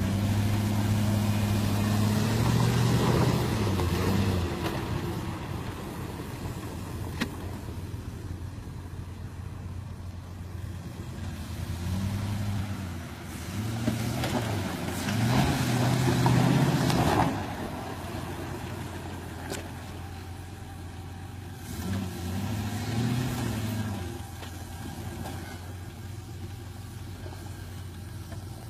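Jeep Grand Cherokee WJ engine revving in several bursts as it climbs a loose dirt slope, the pitch rising and falling with each burst, the loudest about fifteen seconds in, with quieter running in between. Two sharp clicks stand out briefly.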